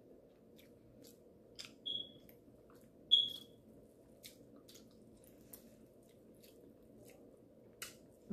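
Faint eating sounds: scattered wet mouth clicks and finger-handling of buttery seafood-boil food as an ear of boiled corn is picked up, with a bite into the corn on the cob near the end. Two short high beeps, about a second apart, stand out as the loudest sounds.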